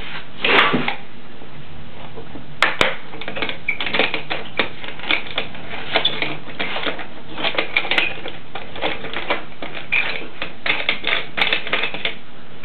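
Irregular clicking and small knocks of plastic corner clamps being worked against a glue-stuck wooden window frame, with a couple of sharper snaps about two and a half seconds in, over a steady hiss.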